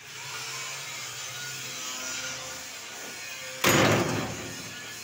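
Corrugated sheet-metal gate scraping and rubbing, then a loud rattling clatter about three and a half seconds in.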